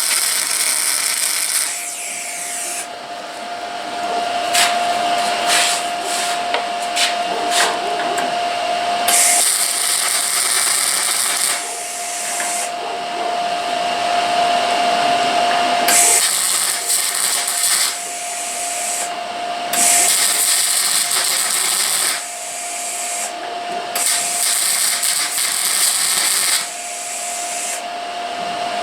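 Welding arc crackling on the truck's sheet metal in a series of runs a few seconds long, with a steady hum in the short gaps between them.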